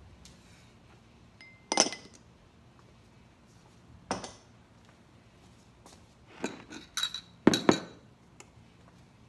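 Glassware and dishes clinking as they are handled and set down on a kitchen counter: a sharp clink with a brief ring about two seconds in, another around four seconds, and a quick run of clinks near the end.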